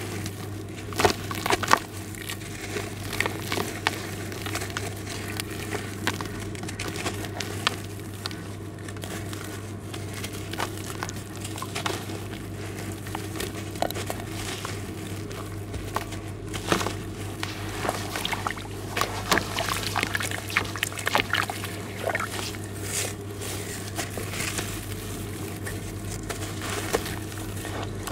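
A damp lump of sand and charcoal with small white stones being crumbled by hand, its gritty pieces crackling apart and dropping into a basin of water with small splashes and patters. A steady low hum runs underneath.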